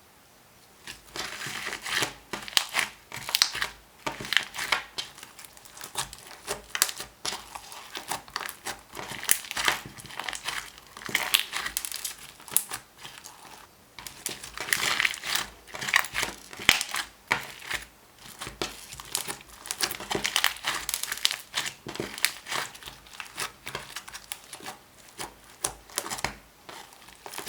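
Slime being squeezed and worked by hand, giving dense, irregular crackling and clicking that starts about a second in and comes in bursts.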